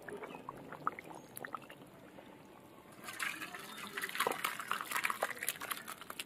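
Chicken curry bubbling softly in the pan with faint scattered pops. About three seconds in, the thick curry with potato and chicken pieces is tipped from the pan into a steel bowl: a wet, sloshing pour dotted with clicks, louder than the bubbling, lasting about three seconds.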